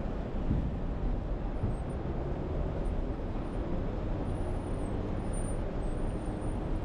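Steady city street traffic: vehicle engines and tyres making a continuous low rumble.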